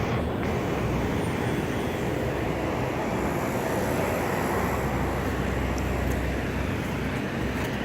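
R22 heat pump condensing unit (2006 Luxaire 4-ton) running, its condenser fan giving a steady rush of air with a low steady compressor hum underneath; the compressor has a buzzing sound.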